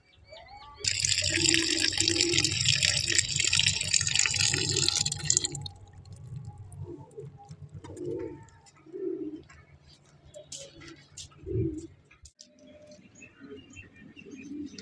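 Water from a tap gushing into a plastic bowl for about five seconds, then cut off suddenly. Afterwards, doves cooing.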